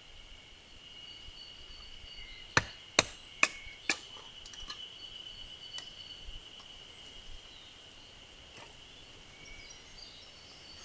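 Four quick, sharp knocks of a tool striking firewood during wood splitting, about half a second apart, over a steady high-pitched insect drone.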